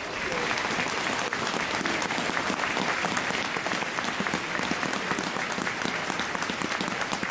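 Audience applauding: many people clapping together, starting as the announcement ends and going on steadily.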